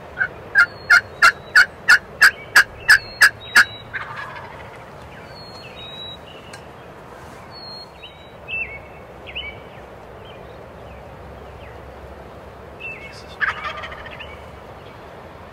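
Turkey yelping: a run of about eleven sharp, evenly spaced loud yelps over the first three and a half seconds. About thirteen seconds in comes a short rattling gobble.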